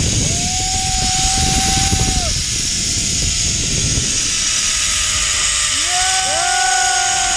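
Zipline trolley pulleys running along steel cables with a high whine that rises, holds and falls away, over heavy wind rush on the microphone. The whine comes once early, then as two overlapping tones near the end.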